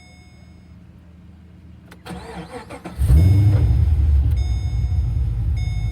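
Holden VE Commodore SSV's 6.0-litre V8 being started: a warning chime sounds faintly, then about two seconds in the starter cranks for about a second, and the engine catches with a loud flare at about three seconds before settling into a steady rumbling idle.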